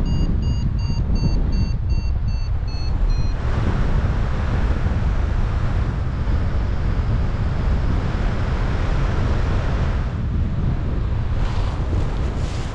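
Wind rushing over the microphone in paraglider flight. For the first three seconds a variometer beeps about three times a second, its pitch slowly falling, signalling climb, until it stops; a few brief clicks come near the end.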